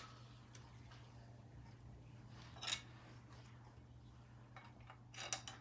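Faint metal clinks of a breaker bar and socket on the crankshaft bolt as the 2.4 TDCi engine is turned over by hand, over a low steady hum. One louder clink comes about two and a half seconds in and a few quick ones near the end.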